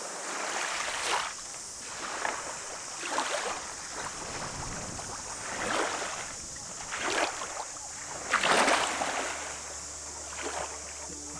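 Water splashing and washing in repeated surges every second or two, over a steady high hiss. A low steady hum comes in about two-thirds of the way through.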